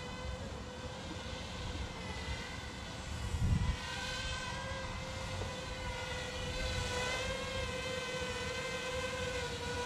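Feima Robotics J.ME quadcopter drone hovering: a steady propeller whine in several pitches that wavers slightly as the drone holds position. A gust of wind buffets the microphone about three and a half seconds in.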